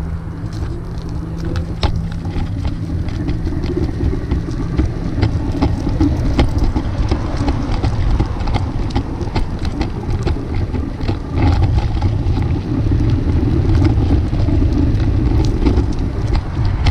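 Meepo Hurricane electric skateboard rolling on pneumatic tyres: a continuous low rumble of riding noise with scattered short clicks and knocks from bumps in the surface.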